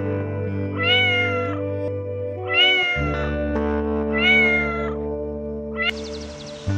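A kitten meowing three times, evenly spaced, each call rising and then dropping slightly in pitch, over steady background music.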